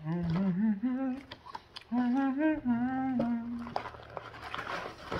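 A man humming a short tune in two phrases. Near the end this gives way to cardboard rustling and small clicks as a Happy Meal box is handled.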